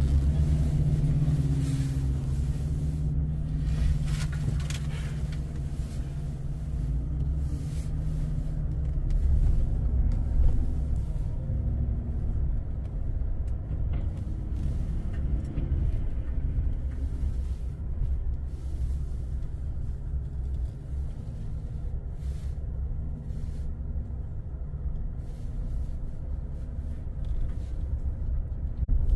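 Diesel engine of heavy paving equipment running steadily with a low rumble.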